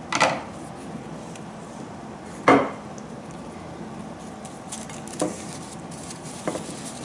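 A few sharp knocks and clinks of a ceramic plate and scissors handled on a wooden table: two loud ones about two seconds apart near the start, then two fainter ones near the end.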